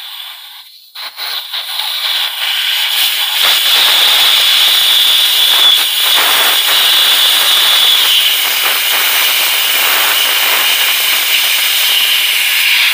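Air rushing out of a car tire through the valve stem as the valve core is unscrewed with a valve core tool. It sputters at first, then builds within about two seconds into a loud, steady hiss that eases off near the end.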